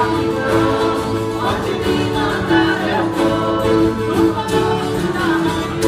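Live Brazilian folk music from a large acoustic ensemble: strummed acoustic guitars and a cello with voices singing together.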